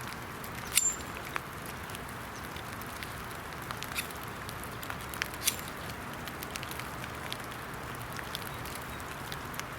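Steel knife struck against a flint to throw sparks onto dryer lint: a few sharp, irregular strikes, the loudest about a second in with a brief high ring. Under them is a steady hiss of rain pattering on wet woods.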